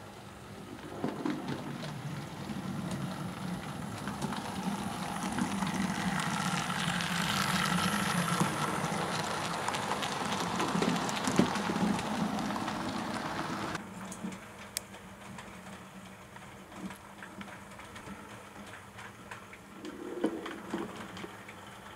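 Model BR Standard 4MT tank locomotive running along model railway track, its motor and wheels giving a steady rumble that grows louder over the first several seconds. About two-thirds of the way through the sound drops suddenly, and quieter running with scattered clicks follows.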